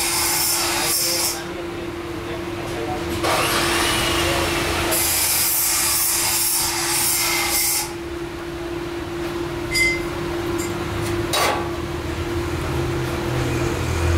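Hand brush scrubbing over the welded joints of a square-tube steel frame: two long spells of harsh rasping strokes, the first stopping about a second in, the second running from about three to eight seconds in, then a few light knocks. A steady hum runs underneath.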